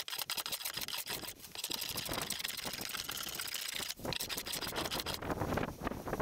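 Hand plane cutting across a wooden tabletop in quick, short strokes, a rasping hiss of shavings coming off, taking down the high edges to flatten a cupped board. The strokes pause briefly about four seconds in, then a few more follow before they stop.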